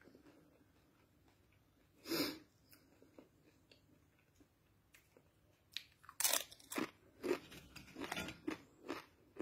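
A dry tortilla-style corn chip crunching as it is bitten, once loudly about two seconds in. From about six seconds on comes a quick, irregular run of crunches as the chips are chewed.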